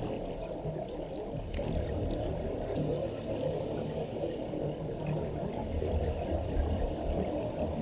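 Steady, muffled water noise, a low rumble with a faint hiss that comes and goes.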